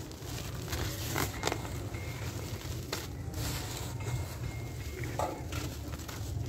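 Hands crumbling small lumps of dry cement and letting the grains and powder sift down onto a pile, giving scattered soft crunches and pattering, over a steady low rumble.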